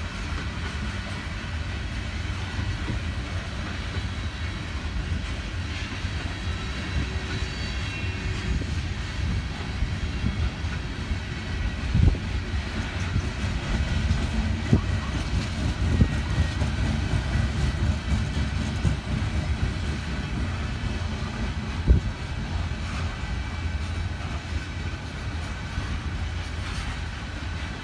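Freight train of gondola cars rolling past: a steady low rumble of wheels on the rails, with a few sharp clanks in the second half.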